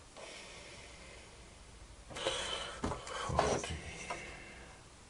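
Faint handling noises of a steel rule and pencil against a piece of plywood, a few short rustles and knocks about two to four seconds in.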